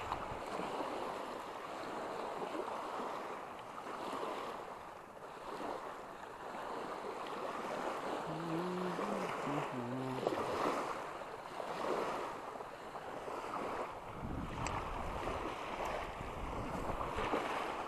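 Small waves lapping and washing onto the shore, with wind blowing across the microphone and a low rumble of wind buffeting in the last few seconds.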